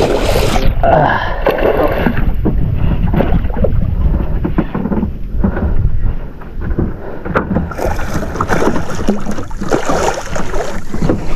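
A hooked fish splashing and thrashing at the water's surface near the start, over a steady heavy rumble of wind on the microphone and boat noise.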